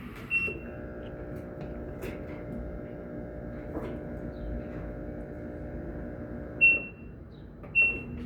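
Daewoo washing machine control panel beeping: three short high beeps, one just after the start and two about a second apart near the end. A steady hum sounds between the first and second beeps.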